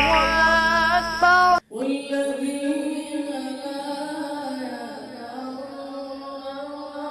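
Melodic Quran recitation: a single voice draws out long ornamented notes. It breaks off abruptly about a second and a half in, then resumes with long held notes that slowly fade.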